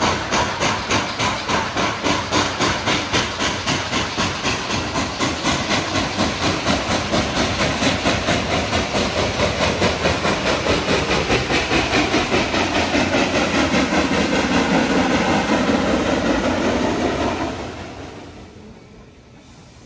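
Reading T-1 4-8-4 steam locomotive working hard as it pulls away, its stack exhaust beating in rapid, even chuffs about three a second over a steady hiss of steam. The chuffing falls away sharply near the end.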